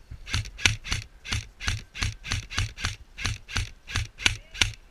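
Quick, regular footsteps close to the microphone, about three a second, each a dull thump with a gritty scuff.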